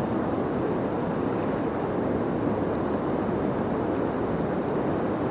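Steady rushing of flowing river water over a shallow, rocky riffle.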